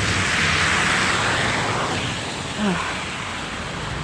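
A vehicle passes on a slushy, snow-covered road, its tyres hissing through the slush, strongest at first and then fading. A brief falling squeak comes a little past halfway.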